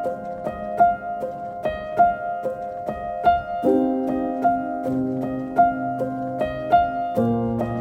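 Background music: a piano-like keyboard plays a steady repeating pattern of notes over held chords, which change about halfway through and again near the end.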